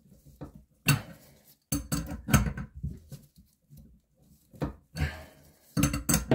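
Adjustable wrench clicking and knocking on the nut of a bidet water-supply fitting as it is tightened, in several short clusters of clicks with pauses between.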